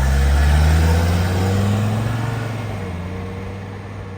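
1983 Mercedes-Benz 300CD's 3.0-litre five-cylinder turbodiesel pulling away, its note rising a little as it gains speed and then fading as it goes.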